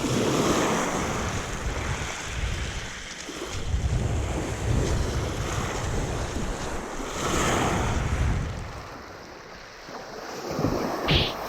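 Sea waves washing onto the beach, surging at the start and again about seven seconds in, with wind rumbling on the microphone. A brief high squeak near the end.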